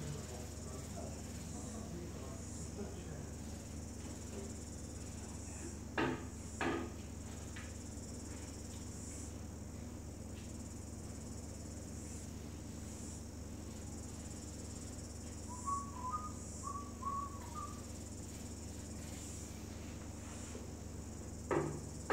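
Steady high-pitched insect trilling with a low steady hum underneath. Two short knocks sound about six seconds in, and a few short chirps come a little past the middle.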